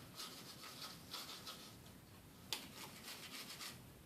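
Faint, quick scrubbing strokes on a Nintendo Switch circuit board being polished clean of corrosion, pausing briefly about two seconds in. A single sharp click about two and a half seconds in is the loudest moment.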